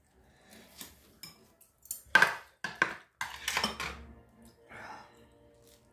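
Metal chopsticks clinking and scraping against dishes and bowls while eating, a run of short clicks with the loudest a little after two seconds and again around three and a half seconds in.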